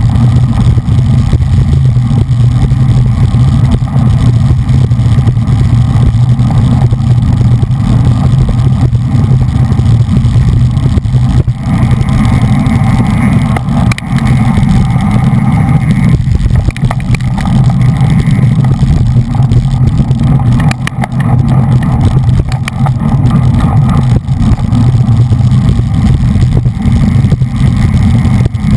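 Wind buffeting a bike-mounted GoPro's microphone while riding in a road-race bunch at racing speed: a loud, steady low rumble.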